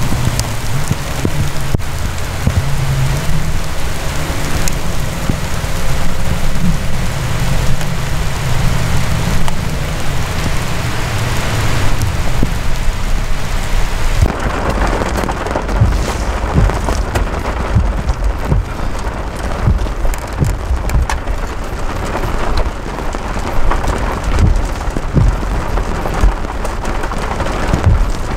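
Steady heavy rain of a thunderstorm, a dense hiss throughout. In the second half the sound changes and short low thumps come through, like drops striking close to the microphone.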